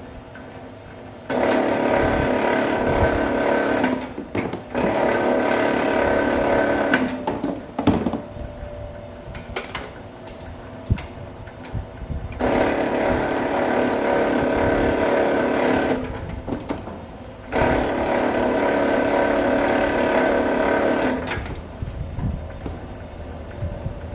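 Vevor electric wire-stripping machine working as smaller pieces of wire are fed through it: each pass raises a steady, loud mechanical whir lasting about three seconds, four times, with quieter running and a few clunks between passes.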